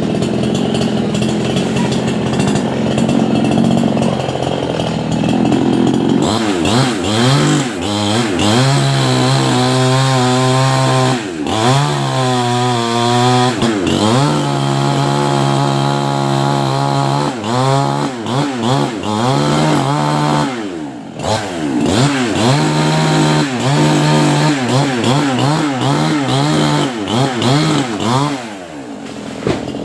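Chainsaw engine running steadily at first, then from about six seconds in revving up and down again and again, with several stretches held at steady high revs while it cuts through a coconut palm trunk.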